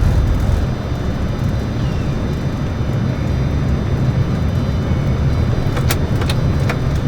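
Cockpit noise of a heavily loaded Boeing 747-400ERF at rotation on take-off: a loud, steady roar of engines and airflow, its deepest rumble easing about half a second in. A few sharp clicks near the end.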